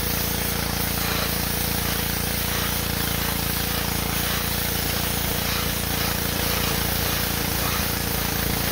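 Gas-engine pressure washer running steadily under the hiss of its wet-sandblasting nozzle, which sprays water and sand against a steel axle housing.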